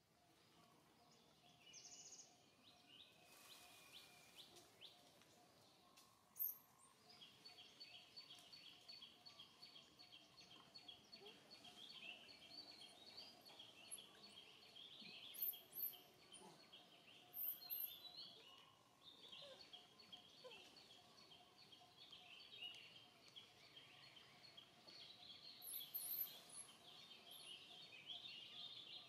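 Faint outdoor ambience: a continuous chorus of rapid high-pitched chirping from wild birds or insects, with a few brief, sharper chirps scattered through.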